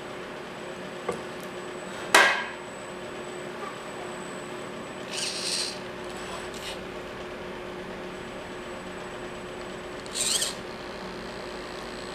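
Everest 10 RC rock crawler climbing over wooden boards, its chassis and tyres knocking on the wood, with one sharp knock about two seconds in. Two short high whirring bursts from its electric drive come about five and ten seconds in, over a steady low hum.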